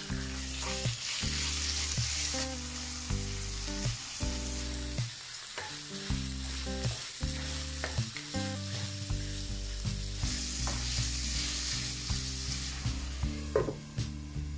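Diced chicken sizzling as it fries in oil with onion and garlic in a non-stick wok over a high flame, stirred with a wooden spatula, with a few light scrapes and clicks. A glass lid clinks onto the pan near the end, and the sizzle drops after it. Background music with sustained notes plays throughout.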